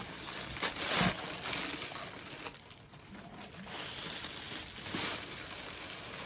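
Rustling and crinkling of packaging being handled, with a few louder crackles about a second in and again about five seconds in.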